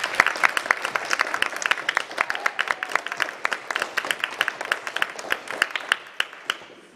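Audience applauding, many separate claps that thin out and die away near the end.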